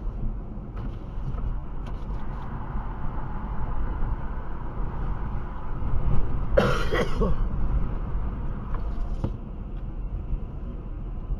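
Low, steady rumble of wind and road noise from a car driving through strong gusty wind, with one brief louder burst about two-thirds of the way in.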